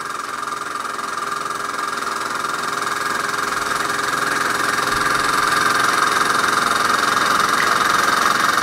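Bowman E158 model steam engine running steadily under steam with a fast, even mechanical chatter that grows gradually louder.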